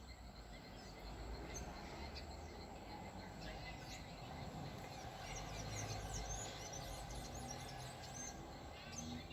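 Small birds chirping outdoors: many short, high calls that grow busier about halfway through, over a faint steady background hum.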